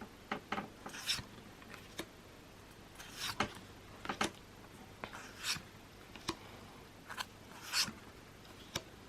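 Pokémon trading cards being handled and slid against one another as a pack is gone through: scattered soft swishes and small clicks.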